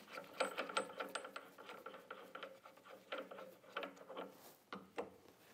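Rubber contact wheel of a MAG-8200 lawn mower blade sharpener being turned by hand and worked off its arbor after loosening with a spanner wrench. The parts give a run of irregular light clicks and ticks.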